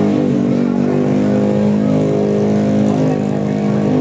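Tuned 150cc automatic scooter racing engine running loud at steady, held revs.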